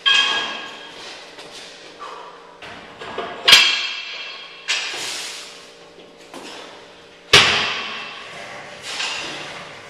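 Gym weights clanking: sharp metal clanks of barbell plates and a cable machine's weight stack, each ringing briefly. The loudest come about three and a half and about seven seconds in.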